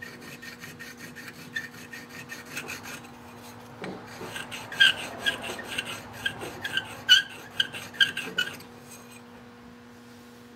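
An abrasive stone is rubbed back and forth in quick strokes on the hardened steel shank of a reamer to grind an identifying mark into it. The scraping comes several strokes a second, grows louder and squeakier about four seconds in, and stops shortly before the end, over a steady low hum.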